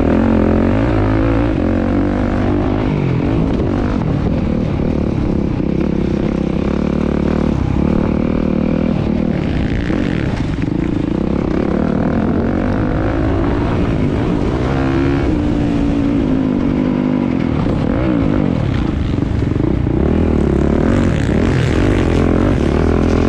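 Several motocross dirt bikes running on the track at once, their engines revving up and down continuously.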